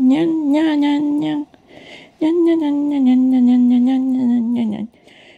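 American Shorthair cat yowling in protest at being brushed: two long, drawn-out moaning calls, the second starting about two seconds in, longer, and sinking slightly in pitch.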